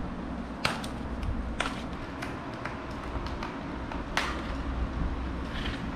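Handling sounds while a boxed bicycle is unpacked: a few sharp clicks and knocks at irregular intervals, over a steady low hum.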